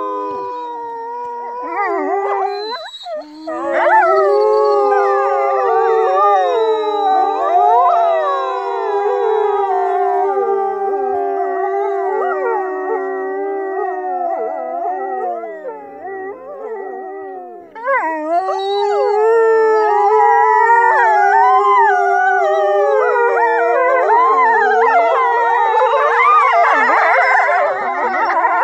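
Pack of wolves howling in chorus: several long, overlapping howls at different pitches, sliding up and down. The chorus thins briefly past the middle, swells again, and turns busier and more broken near the end.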